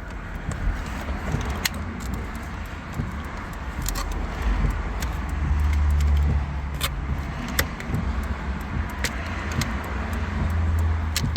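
Scattered sharp clicks and light rattles of parts being handled at a steering column during a switch swap, over a steady low rumble.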